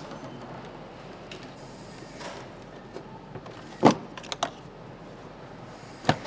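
Steady factory background noise with sharp clicks of motorcycle parts being handled and fitted by hand: a loud click about four seconds in, two lighter ones just after it, and another near the end.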